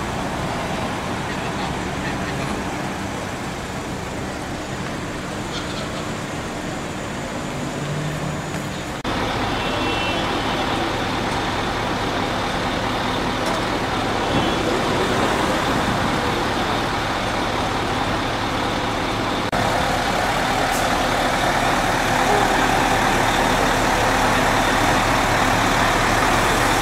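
Fire truck engines running at the scene amid street traffic noise and crowd voices, with a couple of short high beeps. The sound changes abruptly twice and is loudest and deepest in its last part, beside a parked fire engine.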